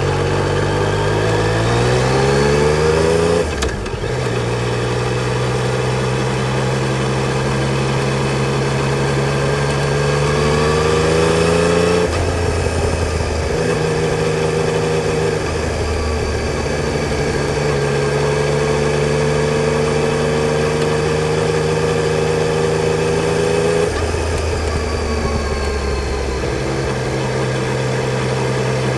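Yamaha Tracer 900 GT's 847 cc inline three-cylinder engine under way: it revs up for the first few seconds, drops in pitch at a gear change, then runs at steady speed, with a short rise in revs and a few more changes in pitch later on.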